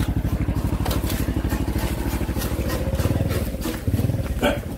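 Small motorcycle engine idling nearby with a rapid, even putter.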